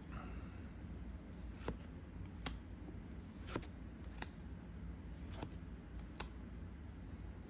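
Trading cards and booster-pack wrappers being handled at a table: six or so short, sharp clicks and snaps, roughly one a second, as cards are flicked through and set down.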